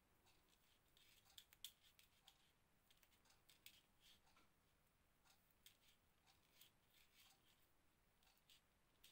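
Faint, scattered small clicks and soft scraping of hands working seed-beaded crochet lace: thread, hook and small tools being handled.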